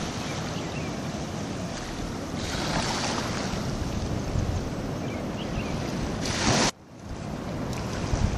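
Small waves lapping at a shallow lagoon shore under wind buffeting the microphone, a steady rushing noise with low rumble. It swells about a third of the way in, builds again, then cuts out abruptly for a moment about two-thirds through.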